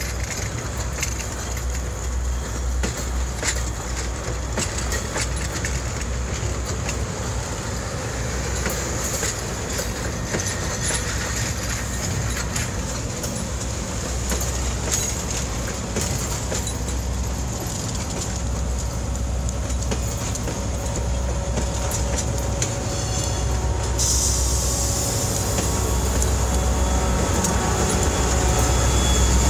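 Passenger rail cars rolling past, steel wheels rumbling and clicking over the rail joints. Near the end the sound grows louder as the EMD F40PH diesel locomotives come alongside.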